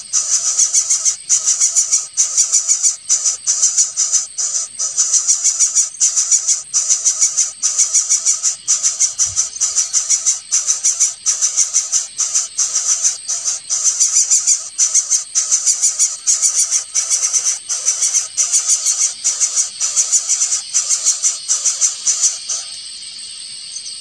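Greater coucal nestlings begging: high-pitched calls in rapid, regular pulses that stop abruptly near the end.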